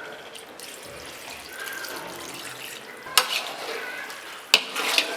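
Chicken broth being added to a pot of country-chicken gravy and stirred in with a metal spoon or ladle, which clanks sharply against the pot about three seconds in and again a second and a half later, with scraping and sloshing after each clank.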